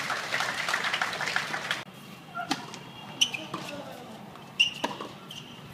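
Tennis ball struck by rackets in a rally: a few sharp, short pops spaced roughly a second apart. A steady hiss in the first couple of seconds cuts off suddenly before the first hit.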